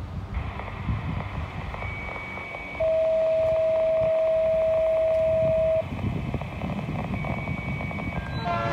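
Freight train's diesel locomotive rumbling as it approaches. In the middle a loud, steady single-pitched beep lasts about three seconds, and near the end the locomotive's multi-note horn starts to blow.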